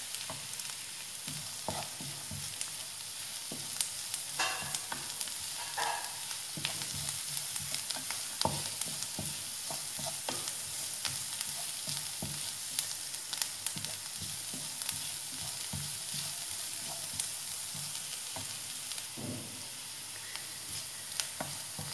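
Chopped onion, green chilli, ginger, curry leaves and garlic sizzling in oil in a non-stick frying pan, stirred with a wooden spatula that scrapes and taps against the pan many times.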